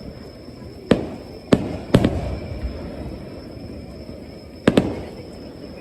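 Aerial firework shells bursting: a sharp bang about a second in, two more in quick succession soon after, and a close double bang near the end, each followed by a low rolling rumble.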